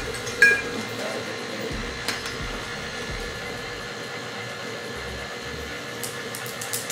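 Electric stand mixer running steadily with an even motor hum. A short sharp ping sounds about half a second in.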